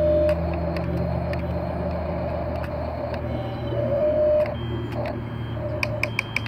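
Small electric motors of an RC toy excavator running as the arm and bucket move, a steady hum with a whine that swells and drops as each motion starts and stops. Rapid clicking starts near the end.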